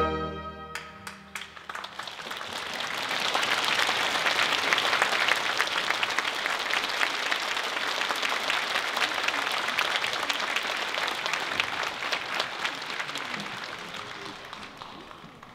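The last chord of the trumpet and orchestra dies away, then the audience applauds. The applause builds over the first couple of seconds, holds steady and fades out near the end.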